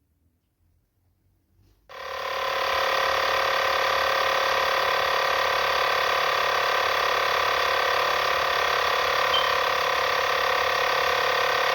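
Near silence, then about two seconds in a loud, steady machine hum with many fixed tones starts suddenly and runs on unchanged.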